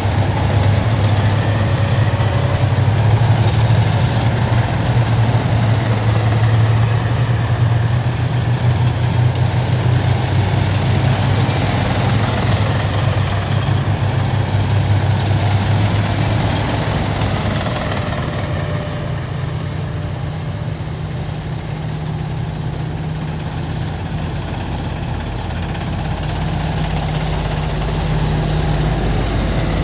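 Heavy military vehicles driving past in a column, their engines making a loud, steady low drone. About two-thirds of the way through the drone eases a little and a steady high whine joins it.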